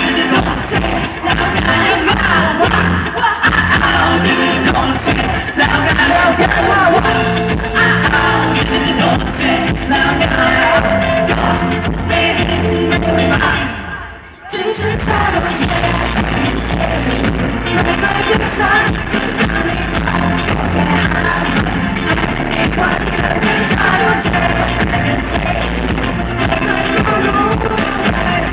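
Live pop song with a male and a female singer on microphones, played loud through a stage PA with a steady beat. The music drops away briefly about fourteen seconds in, then comes straight back.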